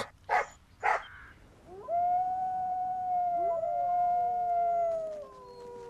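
A small dog barks twice, short and sharp, then grey wolves howl: long, steady howls, with a second voice gliding up to join the first about halfway through and the pitch stepping down near the end.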